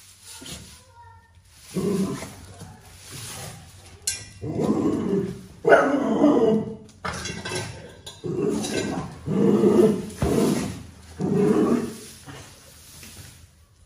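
Dogs barking and growling in repeated outbursts, one every second or so, as they go after a snake.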